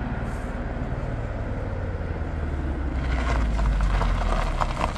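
A car engine running steadily close by, growing louder about three seconds in and easing off near the end, with crackling noise above it.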